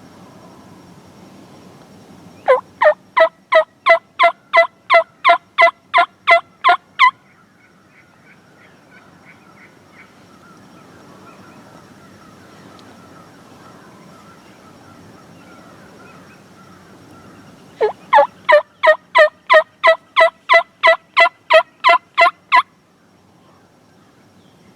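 Two runs of loud turkey yelps, each about fourteen evenly spaced notes at roughly three a second, the second run coming about fifteen seconds after the first.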